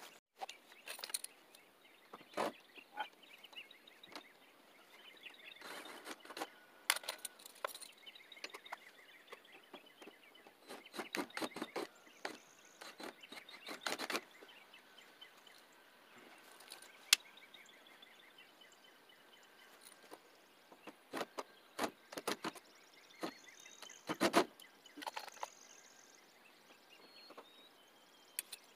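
Tape being peeled off the front roof seam of an RV's cab-over bunk: irregular crackling rips and sharp clicks, coming in short runs, some of them quick rattling strings.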